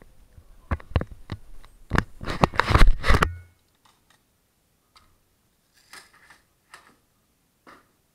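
Handling noise of an action camera being moved and set down: a quick run of knocks, taps and rubbing on the camera body that gets louder and then stops suddenly about three seconds in, followed by a few faint clicks.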